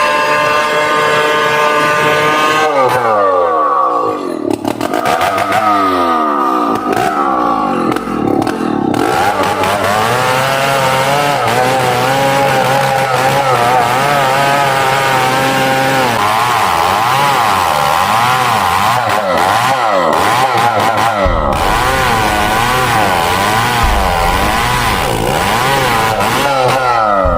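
Two-stroke chainsaw cutting into a large tree trunk. It runs steadily at first, then from about two seconds in its engine pitch dips and climbs again and again as the saw loads up and frees in the cut.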